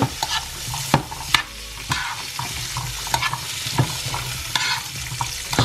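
String beans being tossed by hand in melted butter in a nonstick frying pan, sizzling steadily, with scattered light clicks as the beans knock against the pan.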